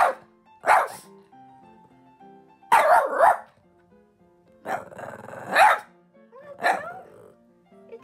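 Boston Terrier barking about five times in short, sharp barks, spaced a second or two apart. It is alarm barking at an unfamiliar object the dog dislikes.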